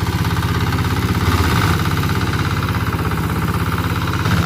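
Tractor engine running steadily with an even, rapid pulse, its note shifting briefly about one and a half seconds in and again near the end as the load or throttle changes.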